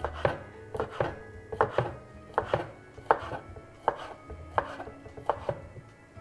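Knife slicing a sausage into half-moons on a wooden cutting board: a steady run of sharp taps, about two to three a second, each as the blade meets the board, with a brief ringing tone after each.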